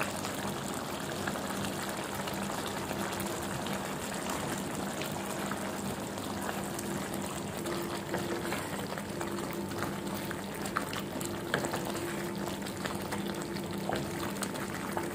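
Thick gravy bubbling as it simmers in a pan while a wooden spatula stirs through it, with small ticks and scrapes over a steady bubbling hiss. A faint steady hum runs underneath.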